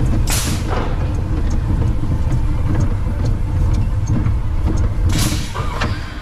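Vekoma Junior Boomerang roller coaster train running along its track, heard on board: a steady low rumble of wheels and wind on the microphone, with short rushes of noise just after the start and about five seconds in.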